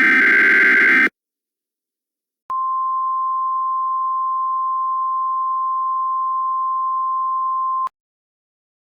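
Emergency Alert System tones: a buzzy digital header data burst cuts off about a second in. After a short silence comes a single steady attention tone of about 1 kHz, lasting about five seconds, the kind that precedes a spoken alert message.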